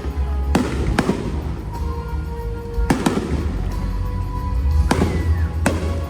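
Fireworks shells bursting with about five sharp, echoing bangs at uneven intervals, over the show's music soundtrack with heavy bass.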